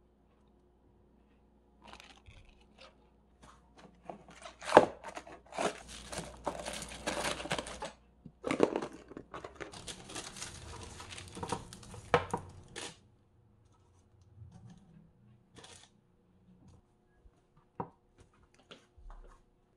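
A sheet of baking parchment being torn off and crinkled as it is handled and laid onto a metal baking tray, with the loudest rip about five seconds in. After it come a few light taps as croissant dough is set on the tray.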